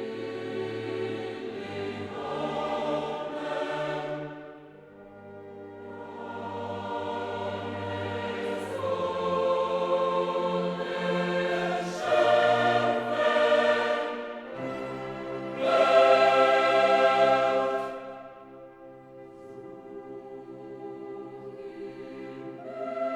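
Classical choral music: a choir sings long held chords in phrases that swell and fade, with the loudest swell about two-thirds of the way through.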